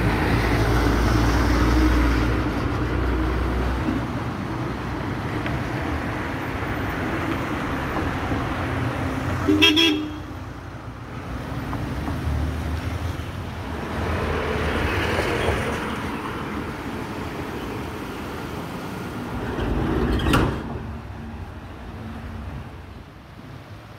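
Road traffic: a government bus's engine rumbles loudly as it passes close at the start, then more vehicles go by. There is a short horn toot about ten seconds in and another about twenty seconds in.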